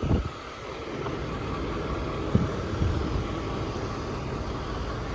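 Diesel engine of a Ford F550 service truck, a 6.7 Power Stroke, idling steadily, with a few dull low thumps.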